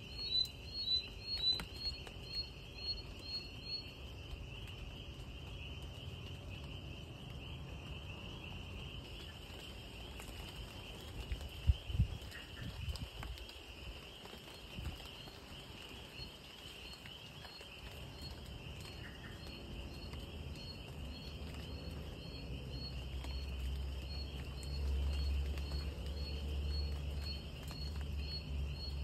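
Night insect chorus: a steady high-pitched trilling of crickets, with a louder chirp repeating about twice a second for the first few seconds and coming back fainter in the second half. A single thump about twelve seconds in, and a low rumble toward the end.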